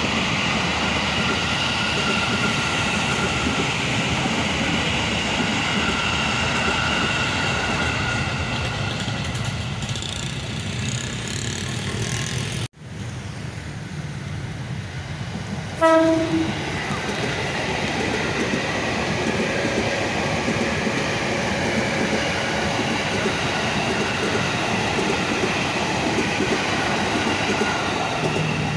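Electric commuter trains (KRL Commuter Line EMUs) running past, with a steady noise of wheels and motors on the rails. After an abrupt cut, an approaching train gives one short horn blast a little past halfway, then runs by.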